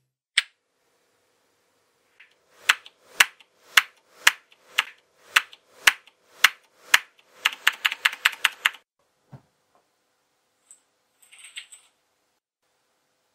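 Typing on a computer keyboard: a single click, then slow, separate keystrokes about twice a second, breaking into a quick run of typing. A soft thump and a few faint clicks follow near the end.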